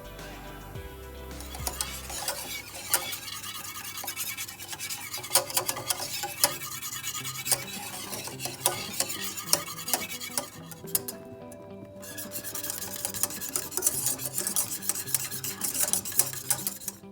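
A spoon stirring and scraping in a cooking pot, with frequent sharp clinks and a short pause about two thirds of the way through, over soft background music.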